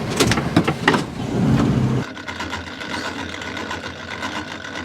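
A motor on a boat running steadily, with a few sharp knocks and clatter in the first second.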